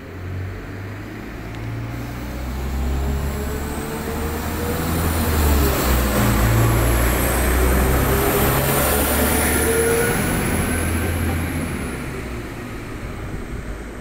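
Northern Class 195 diesel multiple unit pulling away and passing close by, its underfloor diesel engines accelerating. The engine note rises, drops back once about five seconds in, then climbs again over a high whine. It is loudest midway and fades as the train draws away.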